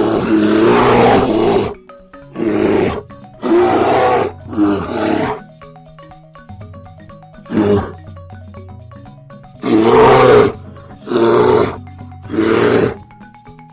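A large wild animal calling loudly about eight times, the first call the longest, over background music with mallet-percussion notes.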